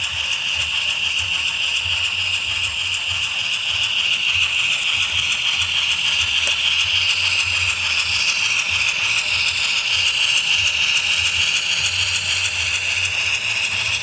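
HO-scale model train running on the layout: a steady high whine from the locomotive's motor and gears over an uneven low rumble of wheels on track.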